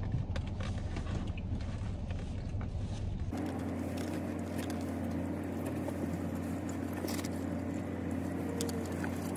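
Eating sounds: a plastic fork clicking and scraping in a plastic takeout tray, and chewing, over a steady low hum in a car cabin. The background hum changes abruptly a few seconds in.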